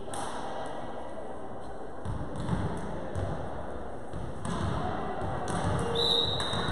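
Volleyball being struck and bouncing on a wooden gym floor: several separate thumps echoing in a large hall over a low rumble of room noise, with a short high-pitched steady tone near the end.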